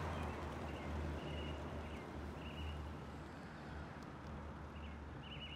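Exhaust rumble of a 1984 Oldsmobile 98's 5-litre 307 V8 as the car drives away, slowly fading.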